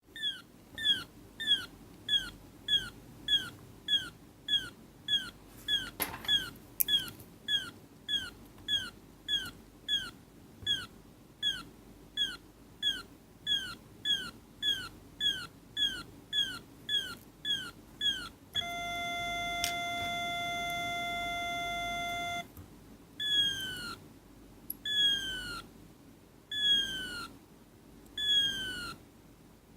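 Electronic 'parrot' sound-effects circuit making fast, evenly repeated falling chirps, about two and a half a second. About eighteen seconds in it switches to a steady beep for about four seconds. Then it plays slower, longer falling chirps about once a second.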